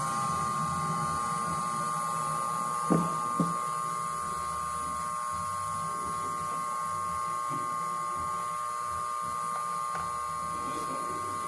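Commercial hat steamer jetting steam, a steady whistling hiss while a felt hat brim is held in the steam to be shaped. Two short knocks come about three seconds in.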